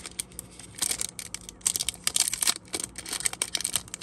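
Foil wrapper of an SP Signature Edition Legends hockey card pack being peeled and torn open by hand: uneven, crackly crinkling and tearing that comes and goes in quick spurts.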